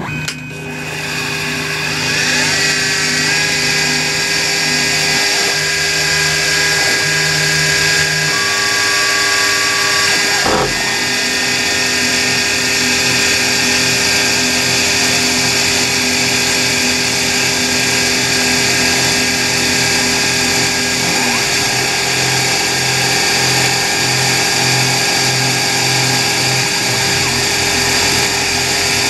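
CNC mini mill cutting an aluminium block with an end mill on a slowed first pass: the machine comes up to speed over the first couple of seconds, then runs steadily with a many-toned whine and hiss.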